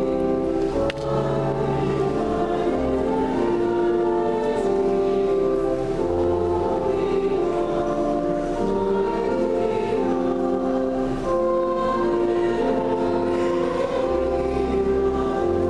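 Church choir singing with organ: slow, sustained chords changing about every second, over low held bass notes.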